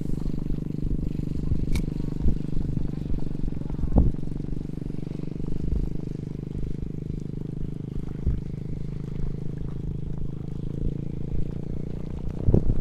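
A steady engine-like drone holding the same pitch throughout, with a few faint clicks.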